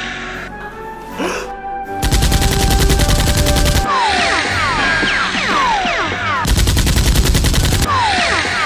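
Two bursts of rapid machine-gun fire sound effect, the first about two seconds in and the second about six and a half seconds in, each lasting around a second and a half. Each burst is followed by quick falling whistle-like tones, all over background music.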